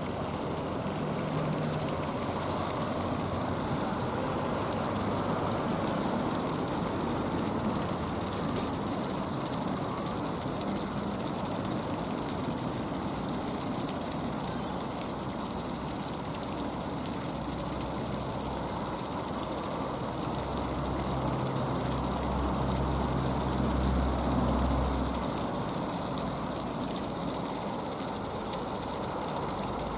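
Steady rushing background noise, with a low rumble that swells about two-thirds of the way through and fades again a few seconds later.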